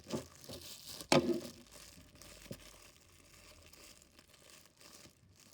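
Clear tape being pulled and cut and a crumpled plastic sandwich bag crinkling as it is handled. There is one sharp, loud snap about a second in, then quieter crinkling.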